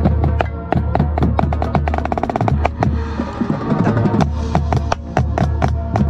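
Marching snare drum with an Evans head, played close up with sticks: a fast, rhythmic pattern of sharp strokes, with a dense even run of strokes like a roll about halfway through.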